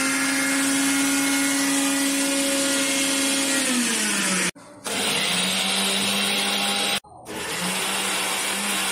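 An electric household appliance motor running with a loud whir and hiss, like a mixer grinder or vacuum cleaner. It holds a steady pitch, then drops lower about three and a half seconds in. After two abrupt cuts it runs on at a steady, lower pitch.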